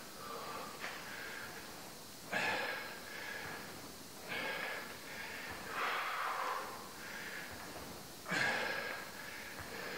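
Heavy breathing of a man working hard at exercise: four forceful exhalations about two seconds apart, the loudest about two and a half seconds in and again near the end.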